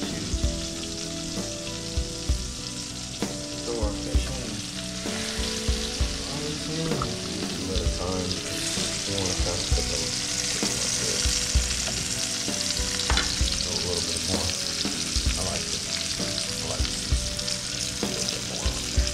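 Whole Mayan cichlids frying in hot butter and olive oil in a pan. The steady sizzle grows louder about eight seconds in, when the fish are in the fat. Short knocks and clicks of metal tongs against the pan come here and there.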